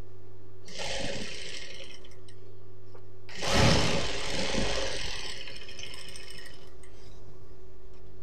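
Industrial lockstitch sewing machine sewing a seam in two short runs, one about a second in and a longer, louder one from about three and a half seconds that lasts some three seconds, over a steady motor hum.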